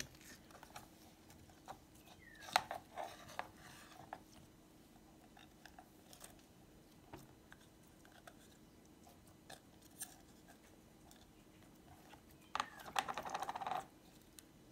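Slime being handled: scattered small clicks and crackles as it is pulled out of a plastic cup, with a short run of rapid wet crackling about twelve seconds in as it is squeezed between the hands.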